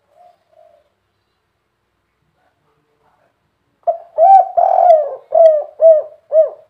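Spotted dove cooing: two faint soft notes at the start, then about four seconds in a loud song phrase of a short note, a longer drawn-out coo and three short arched coos, the 'kuk 3' ending.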